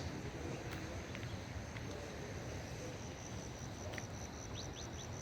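An insect trilling: a faint, high pulsing note repeating about five times a second. A few quick high bird chirps come in about four and a half seconds in.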